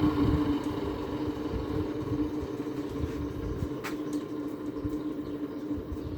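2009 GE 10,000 BTU window air conditioner running on low cool, with a steady hum from its fan and compressor. There is a single sharp click about four seconds in.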